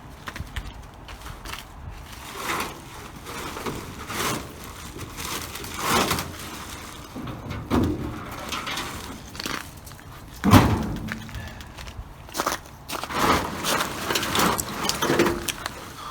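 Irregular knocks and clunks of a car trunk lid being handled and fitted onto its homemade hinges, with the loudest knock about ten and a half seconds in.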